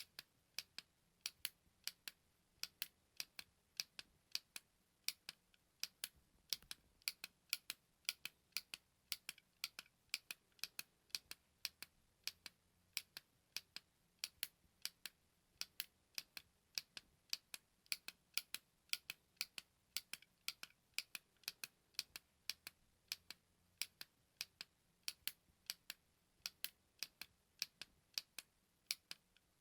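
A button being clicked over and over: short, sharp clicks about three a second, unevenly spaced and of varying strength.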